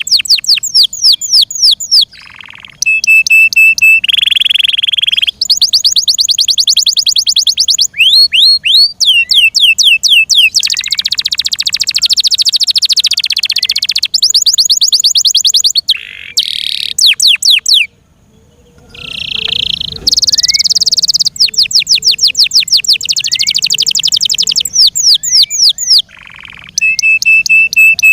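F1 Yorkshire canary singing a long, loud song. It moves through tours of rapidly repeated sweeping notes, held rolling trills and buzzy rattles, and breaks off briefly a few times.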